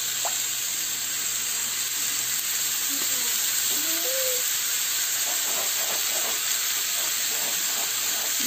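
Steady sizzle of chicken pieces, bacon and green beans frying in oil in a pan.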